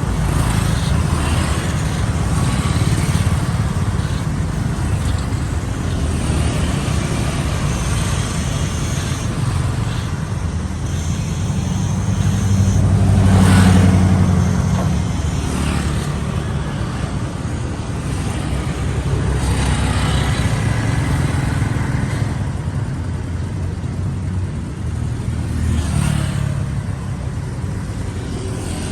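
City street traffic: a steady rumble of engines and tyres, with vehicles passing close by one after another, the loudest about halfway through.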